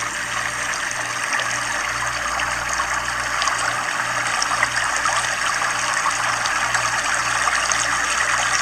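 Fast-moving flash-flood water rushing steadily past submerged houses, a continuous full rush of water noise with no break.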